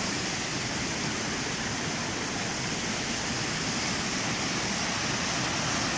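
Shallow river water rushing over a rock slab in small cascades: a steady, even rush.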